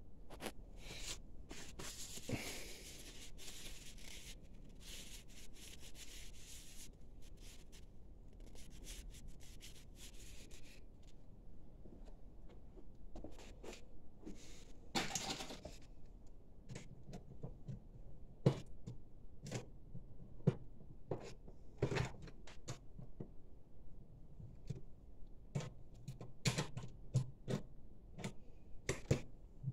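Rustling and scraping, with paper being handled over the first few seconds, then scattered light clicks and taps of small metal parts being handled on a metal plate.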